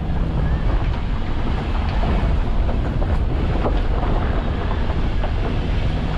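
Wind buffeting the microphone over the steady low rumble of a car driving on a rough, stony dirt road, with scattered clicks and knocks from gravel under the tyres.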